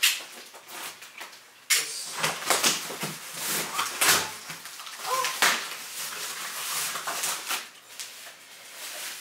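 Cardboard box being opened by hand: a run of rustling and crinkling from the cardboard flaps and plastic wrapping as a wrapped part is lifted out, starting sharply about two seconds in.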